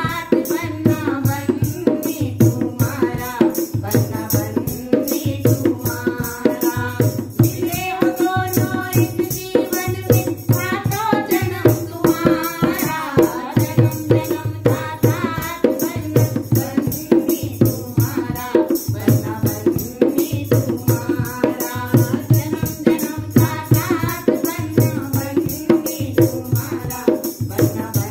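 Women singing a Garhwali banna-banni wedding song, the melody coming and going in stretches, over a steady dholak beat. A bright jingle sounds with each beat.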